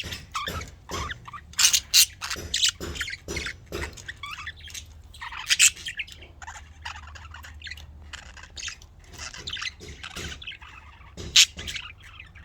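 Budgerigars chirping and chattering in a fast run of short, high chirps, with a few louder squawks about two seconds in, around the middle, and near the end.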